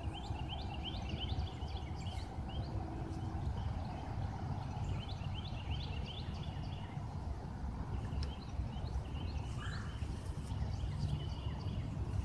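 Birds chirping: many short, rising high chirps in clusters, thickest in the first few seconds. Under them runs a steady low rumble of wind and handling noise on the phone's microphone.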